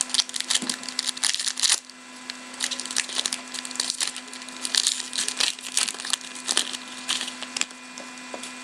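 Trading cards and their packaging being handled: crisp rustling and crinkling in irregular clusters, with a steady low hum underneath.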